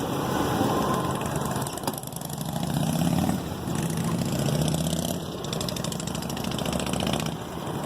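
Truck engine idling steadily, just jump-started from a dead battery.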